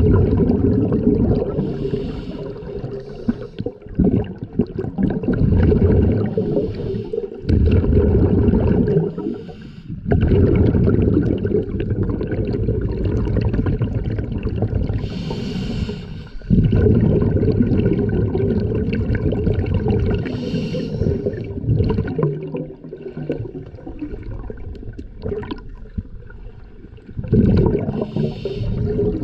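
Scuba regulator breathing heard underwater: a brief hiss with each inhalation every several seconds, then a long bubbling stretch as each breath is exhaled through the regulator.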